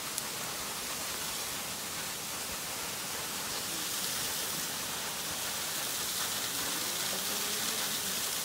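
Waterfall pouring down a rock face: a steady, even hiss of falling and splashing water.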